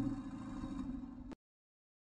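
Tail of an intro sound effect: low steady tones over a rumble, fading, then cut off abruptly a little over a second in, leaving dead silence.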